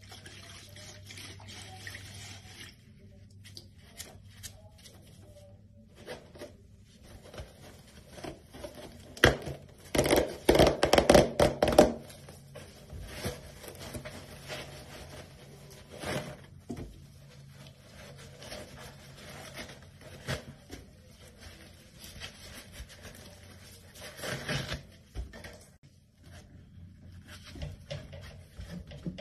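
Soapy water in a plastic basin being swished and splashed by a gloved hand, in short irregular bouts, the loudest a run of splashes about ten to twelve seconds in. Later, scattered splashes and knocks as large bath sponges go into the water.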